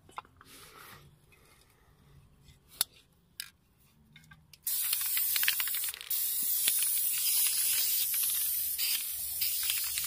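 Aerosol spray-paint can spraying onto a wall: a loud steady hiss starts about halfway through, breaks off briefly near six seconds and resumes. A few sharp clicks come before it.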